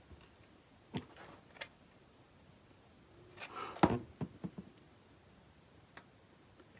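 Light clicks and knocks of a hot glue gun and fabric flower pieces being handled on a table, with a short cluster of knocks and rustling about halfway through, the loudest part.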